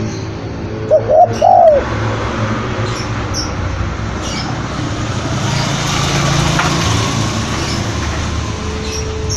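Spotted dove cooing: two short arched coo notes about a second in, the loudest sound, over a steady background hiss with faint high chirps of smaller birds.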